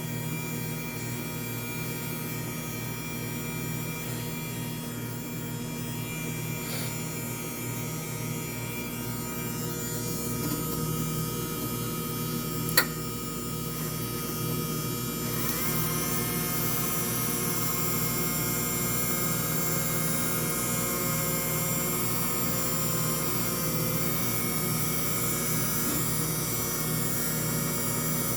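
Steady electrical hum with several fixed tones, a single sharp click about 13 seconds in, and a shift to a slightly louder, different set of tones a couple of seconds later.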